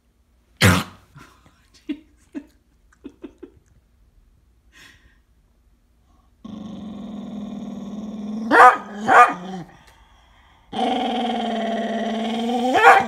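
Golden retriever puppy growling in two long, steady grumbles. The first is broken by two short barks and the second ends in one. There is a sharp knock about half a second in, before the growling starts.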